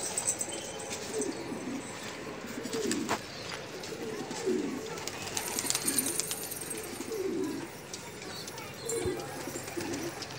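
Domestic pigeons cooing, short low coos repeated about once a second.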